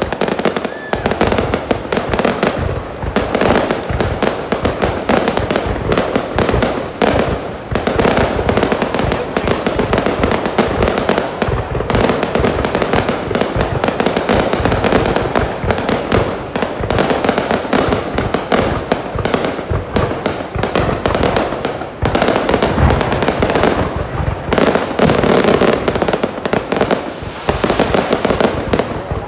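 Aerial fireworks display going off close by: a dense, unbroken barrage of loud bangs and crackling shells.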